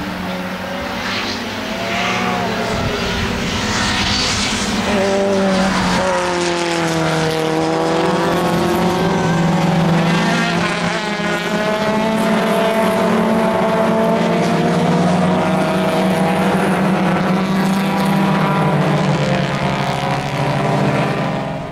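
A field of historic saloon race cars driven hard through a corner, several engines overlapping. Their notes rise and fall as they accelerate and shift gear, building up about six seconds in as the pack arrives.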